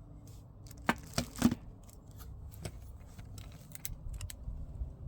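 Handling noise: a few sharp clicks and knocks among rustling, the loudest about a second and a half in.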